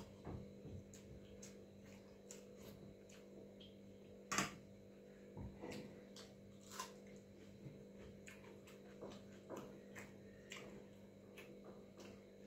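Faint eating sounds: scattered wet clicks and smacks of chewing and of a hand mixing water-soaked rice, with one louder click about four seconds in, over a steady low hum.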